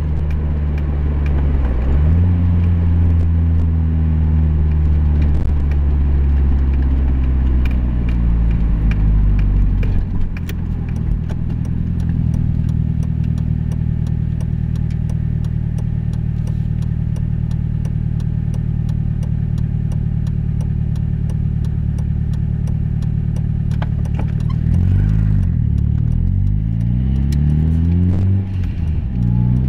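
A vehicle's engine running while being driven, its pitch rising and falling with speed changes, then holding steady for a long stretch in the middle before rising and falling again near the end, with scattered sharp ticks throughout.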